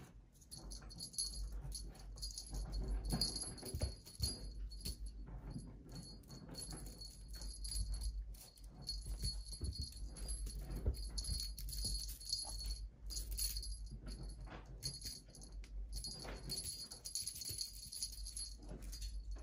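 Small jingle bell on a cat wand toy jingling on and off as the toy is jiggled and batted, with light taps and rustles over a low steady hum.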